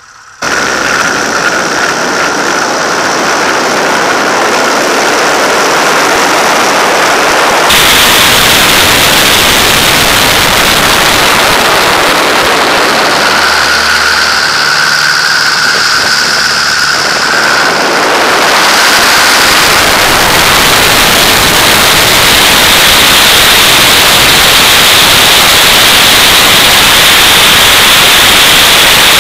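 Loud, steady wind rush mixed with engine and propeller noise, picked up by a camera mounted outside a Pitts aerobatic biplane. Thin high steady tones come and go over it, and the sound's character shifts abruptly about eight seconds in.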